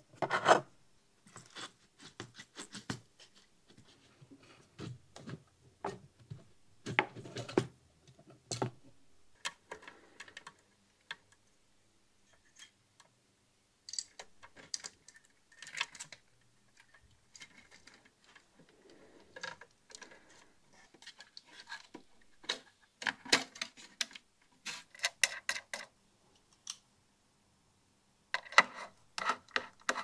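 Irregular light clicks, taps and rubbing from hands working small metal hardware and hookup wires: nuts and washers taken off mounting bolts, wires fed into a metal amplifier chassis, a nut driven home with a socket driver. Short quiet gaps fall between the handling noises.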